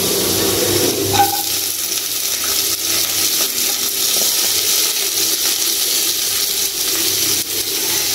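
Chopped garlic and sliced onions frying in hot oil in a nonstick kadai, a steady sizzle as the onions are pushed into the pan. A brief clink about a second in.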